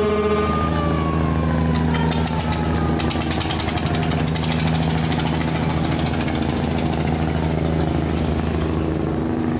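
Diesel engines of a large river passenger launch running as it pulls away, a steady low drone. A tone slides down in pitch and fades over the first few seconds, and a fast clatter of rapid ticks comes in from about two to four and a half seconds in.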